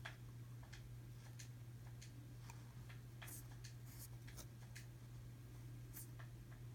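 Faint, irregular small clicks and taps of tiny die-cast car parts being handled and fitted during a 1:64 wheel swap, over a steady low hum.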